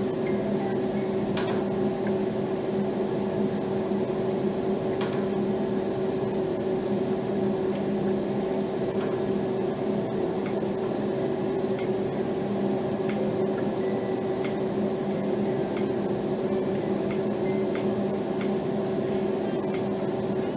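A steady low hum with a hiss behind it, unchanging throughout, with a couple of faint clicks in the first few seconds.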